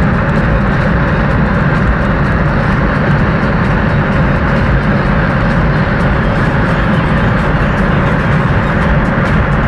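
Steady, loud cabin noise inside a Mercedes-Benz G500 at about 200 km/h: its V8 engine, wind and tyre noise blended into an even, unbroken sound as the car holds near its top speed under acceleration.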